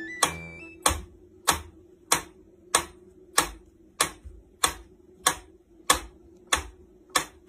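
Mechanical pyramid metronome ticking steadily, a little under two ticks a second.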